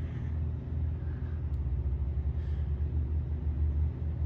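Steady low mechanical rumble with a constant hum, as of an engine or machinery running without change.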